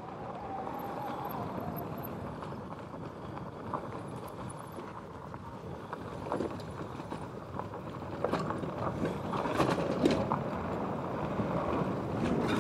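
E-bike rolling over a rough dirt singletrack: a steady rush of tyre and wind noise, with scattered knocks and rattles as the bike jolts over bumps, getting louder and busier from about eight seconds in.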